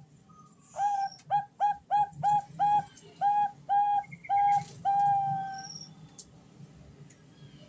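Female zebra dove (Bangkok perkutut) cooing to call a male: a quick series of about ten short, clipped notes starting about a second in, ending on one longer drawn-out note a little before six seconds.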